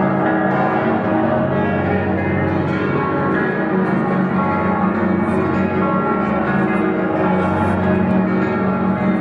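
Many church bells ringing at once across a city, their peals overlapping into one continuous, dense layer of tones.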